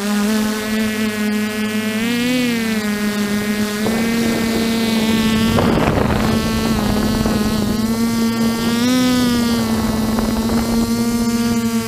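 The six brushless motors and propellers of an F550 hexacopter, picked up by a camera on the frame: a steady buzzing whine that bends in pitch as the throttle changes, twice briefly. A rush of wind noise swells in the middle as the craft climbs away from the ground.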